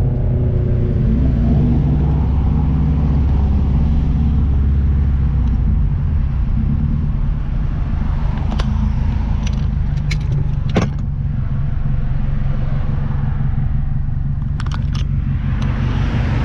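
Subaru WRX STI's turbocharged flat-four engine running steadily at low revs, with a few sharp clicks around the middle and near the end.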